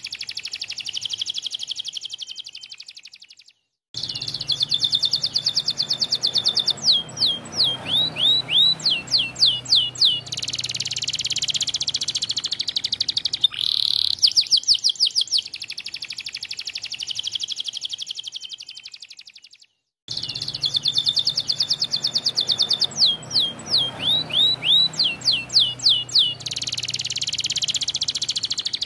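Domestic canary singing a long, fast song: rapid trills of repeated notes, runs of quick down-sweeping notes and rolling phrases. The song cuts out completely for a moment twice, about four seconds in and again about twenty seconds in.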